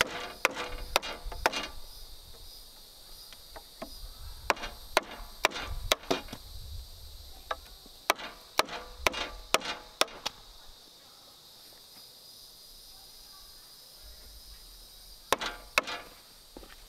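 A tool striking wood with sharp blows, as in chopping or notching timber. The blows come in runs of two to five, about two a second, with pauses between. Insects buzz steadily in the background.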